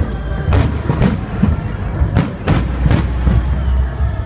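Fireworks salute going off: a quick series of sharp bangs, several within a second between about two and three seconds in, over a continuous low rumble.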